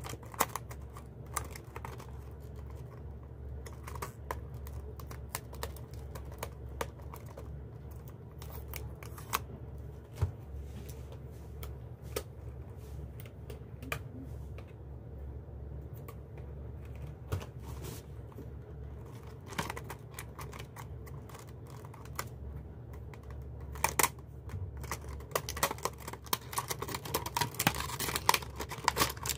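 Clear rigid plastic packaging being handled and opened: scattered clicks and taps of the plastic box, turning into busier crinkling and clicking of the plastic over the last few seconds. A steady low hum runs underneath.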